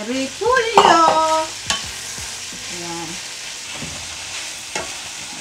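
Shredded cabbage stir-frying in a sizzling pan with chicken and vegetables, stirred with a plastic spatula, with a couple of sharp knocks of the spatula.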